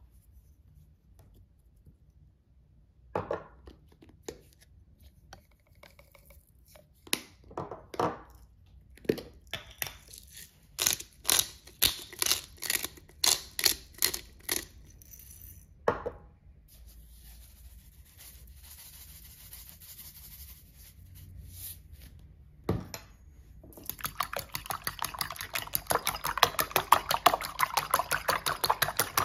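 Seasoning ground over a bowl of raw eggs, a run of gritty clicks and scrapes. About 24 seconds in, a fork starts beating the eggs in a ceramic bowl, a fast clatter of several strokes a second against the bowl.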